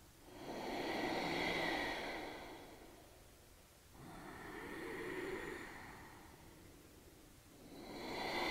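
A woman's slow, audible ujjayi breathing, the steady 'resonant breath' of Ashtanga practice. Three long breaths each swell and fade over two to three seconds, the third beginning near the end.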